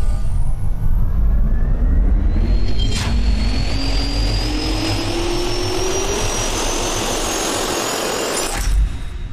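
Jet turbine spool-up sound effect: a rising whine over a loud rushing noise, with a sharp hit about three seconds in. It builds steadily, then gives a brief louder burst near the end and cuts away into a fading tail.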